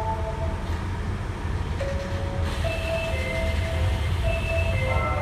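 Door-closing chime of an Osaka Metro 30000 series subway car, two tones alternating over and over, over the steady low hum of the stopped train as its doors begin to slide shut.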